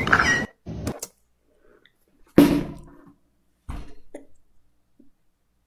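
A woman laughing hard in short separate bursts with near-silent gaps between them; the loudest burst comes about two and a half seconds in.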